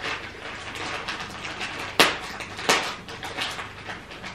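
Hands pulling apart and handling sphagnum moss: a crackly rustle, with two sharp knocks, one about two seconds in and another shortly after.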